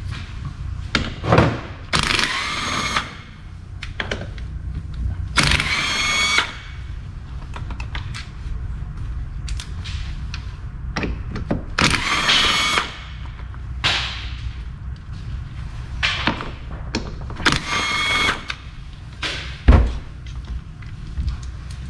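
A cordless power tool spinning bolts out of a transfer case: four short whirring runs of about a second each, one per bolt. Short clicks and knocks come between the runs, and a single heavy thud comes near the end.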